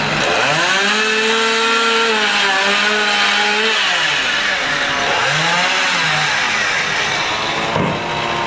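Chainsaw running at high revs: its pitch rises, holds for about three seconds, falls back, then revs up again briefly.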